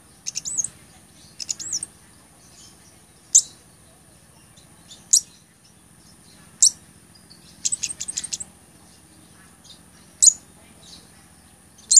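Male blood-breasted flowerpecker (cabai gunung) calling: sharp, high single chip notes every second or two, with short runs of rapid ticking notes near the start and again about two-thirds of the way through.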